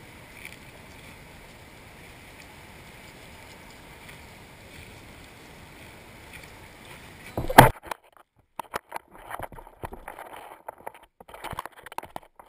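Steady hiss of gentle waves and breeze at the shore, then a single loud knock close to the microphone about two-thirds of the way in. After it the steady background drops away, leaving scattered short rustles.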